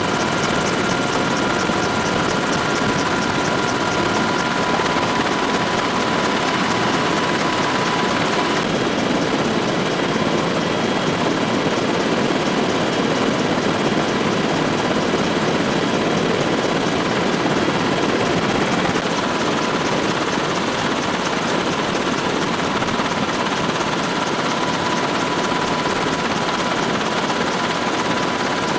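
Helicopter in flight heard from inside the cabin: a loud, steady mix of rotor and turbine engine noise. A faint steady whine sits over it for the first nine seconds or so, fades out, and returns faintly near the end.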